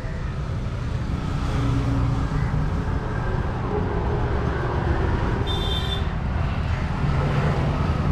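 Road traffic running steadily, a low rumble of passing car and bus engines, with a brief high-pitched beep about five and a half seconds in.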